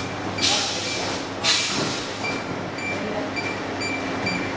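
Handheld barcode scanner beeping again and again, about two short beeps a second, each beep the sign of a barcode read on a box. Two louder rustles of cardboard boxes being handled come about half a second and a second and a half in.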